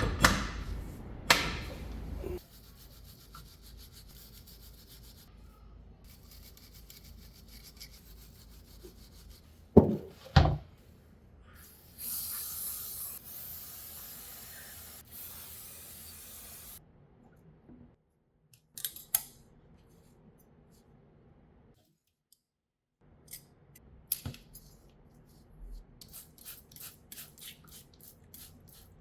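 Hand tools working on a car's rear brake parts: metal knocks and clanks, a stretch of steady hiss about twelve seconds in, and quick repeated scraping strokes, several a second, near the end.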